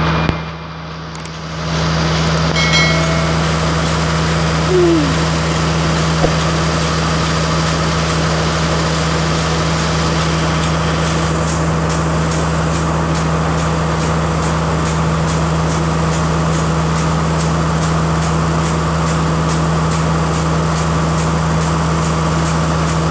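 Diesel engine of a passenger diesel multiple unit's power car running steadily, a low, even hum. From about halfway through, a faint regular ticking comes in, about two to three a second.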